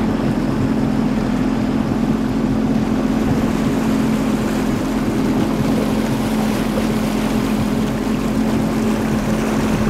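Boat motor running steadily at a constant low speed, a steady unchanging drone.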